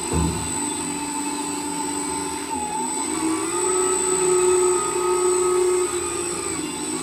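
RC airboat's brushless electric motor spinning its propeller with a steady whine and a constant high-pitched tone above it. The pitch rises about three seconds in as the throttle is opened, holds, and drops back shortly before the end, after a brief low thump at the start.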